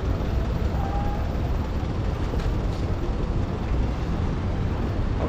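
Steady city street ambience: a low rumble of road traffic, with a couple of faint clicks about halfway through.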